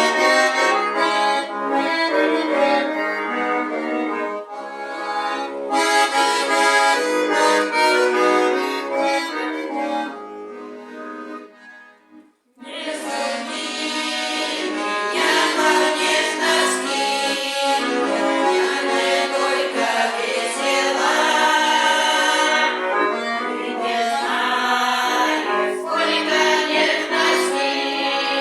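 Accordion playing the tune of a song, with no clear singing. About ten seconds in the music fades almost to silence, then starts again a couple of seconds later.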